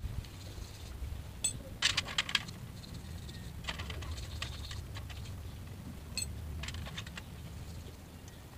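A toothbrush scrubbing small scooter clutch parts in a pan of gasoline: scratchy bristle strokes and light metal clicks, coming in a few short clusters.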